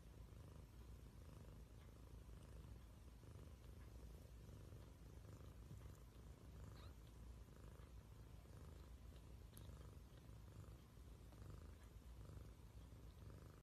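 Domestic cat purring softly in a steady, pulsing low rumble.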